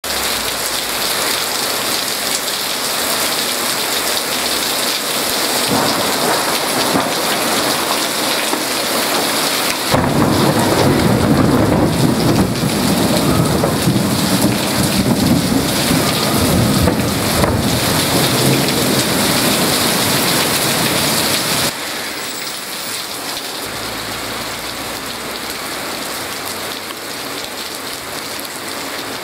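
Heavy rain falling in a steady hiss during a thunderstorm. About ten seconds in, a long low roll of thunder joins it and rumbles for roughly twelve seconds before cutting off abruptly, leaving the rain alone.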